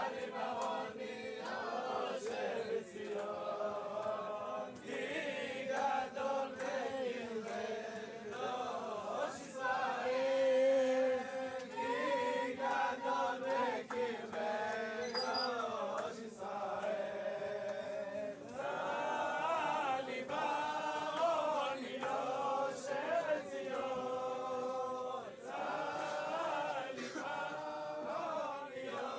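A group of men singing a religious song together, unaccompanied, in one continuous chorus.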